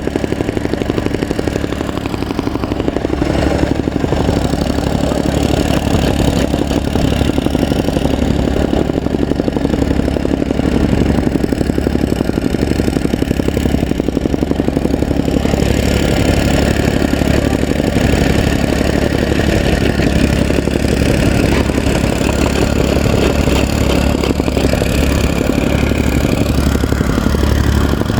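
Soil compactor running steadily, its small engine and the machine's rapid pulsing beat going without a break.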